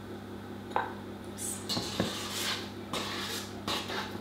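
A spoon stirring thick cookie dough in a stainless-steel stand-mixer bowl, with scraping and three sharp knocks of the spoon against the bowl's side.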